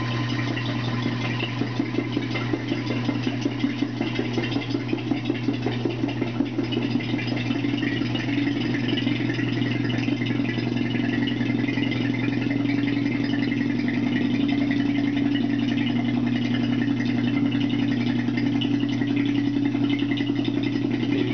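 Electric vacuum pump running and pumping the air out of a bell jar: a steady low hum, uneven and rattly for the first several seconds, then settling into a smoother, even drone.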